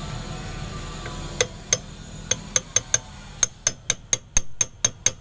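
Hammer lightly tapping a metal extension bar used as a drift, seating the oil seal over the front-axle bearing in a Bajaj RE three-wheeler's front hub. Sharp metallic taps start about a second and a half in and quicken to about four a second.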